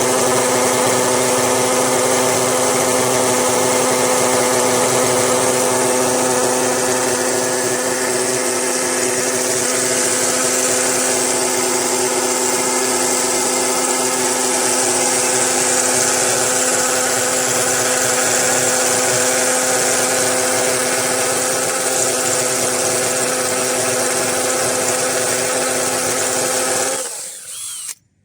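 Electric drill motor running at a steady speed, a constant whine over a hiss, then winding down and stopping about a second before the end.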